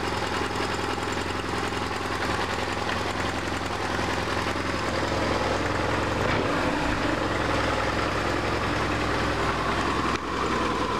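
BMW R1150RT's boxer twin idling steadily. Its throttle bodies have worn shafts, which keep the idle from being set right.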